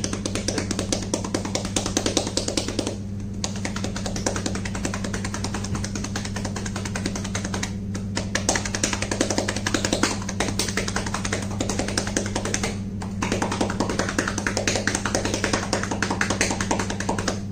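Chest percussion: cupped hands clapping rapidly and evenly on a person's back through a cloth scrub top to loosen mucus in the lungs, with short pauses about 3, 8 and 13 seconds in.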